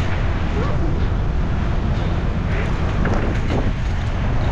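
Steady wind rumble on the microphone of a camera carried on a moving bicycle, with faint voices now and then.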